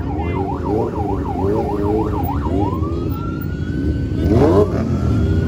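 A siren warbling quickly up and down about three times a second, then rising into a long steady wail about halfway through, over the steady rumble of motorcycle engines. A short rising engine rev about four and a half seconds in.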